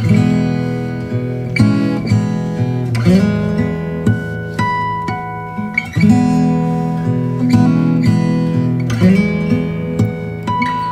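Background music played on acoustic guitar, strummed and picked, with a new chord struck about every second.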